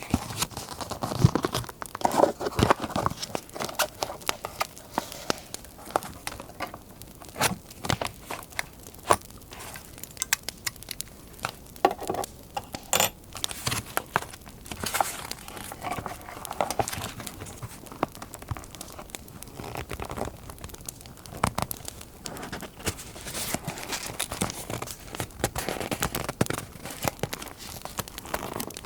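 Paper being handled, crinkled and torn in irregular bursts of rustling and sharp little clicks, over a crackling fire sound.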